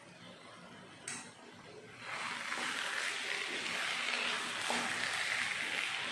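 Steady sizzling hiss from a hot pan of foxtail millet upma being stirred with a wooden spatula, starting about two seconds in, with a light click a second earlier and a couple of soft spatula knocks.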